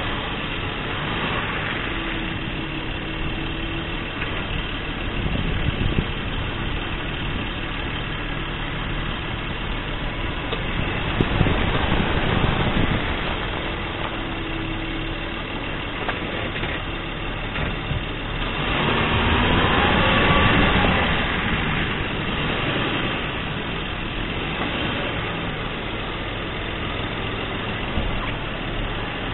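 Underbody running noise of a 2022 Acura MDX moving slowly with its front wheel steered, heard close to the front wheel and CV axle: a steady hum with a few short squeaks and faint knocks, and louder stretches about twelve and twenty seconds in.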